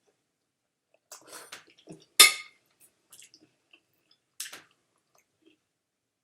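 Close-up eating sounds of spaghetti: chewing with cutlery and dish sounds. A sharp clink about two seconds in is the loudest sound, and another comes about four and a half seconds in.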